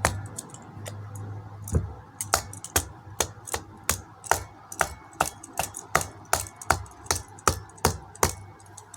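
Sharp plastic clicks from a Samsung TV remote control, starting a couple of seconds in and repeating steadily about two to three times a second.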